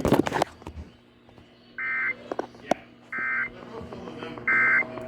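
Three short, identical bursts of weather-radio SAME data tones, each under half a second and about a second apart, with a raspy electronic warble. This is the end-of-message code that closes an emergency alert broadcast.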